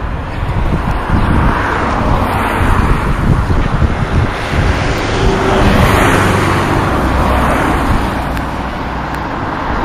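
Class 57 diesel locomotive passing at the head of a train of coaches: engine note and wheel rumble on the rails, building to loudest about six seconds in and then easing off.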